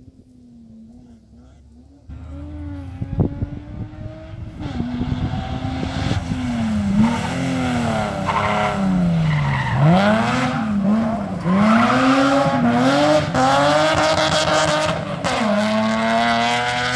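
Historic rally car engine driven hard past close by. It is faint at first and gets much louder about two seconds in. The pitch climbs with each burst of throttle and drops sharply several times as the driver lifts and changes gear.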